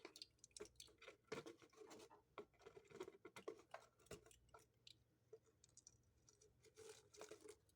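Faint, irregular scraping and tapping of a measuring spoon in a spice jar, scooping out garlic powder that is running low.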